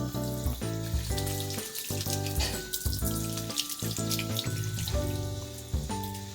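Water running from a tap into a sink, splashing, under background music with held notes that change about every half second.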